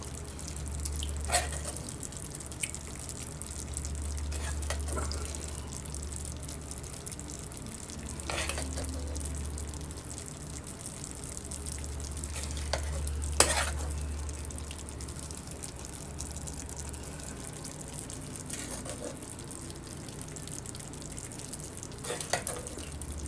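Metal spoon scooping saucy chicken stew from a pan onto a plate, with several sharp clinks of spoon against pan and plate, the loudest just past halfway. A low hum comes and goes underneath.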